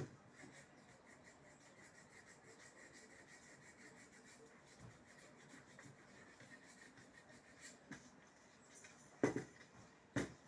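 Quiet handling noise with faint rubbing, then two sharp knocks about a second apart near the end.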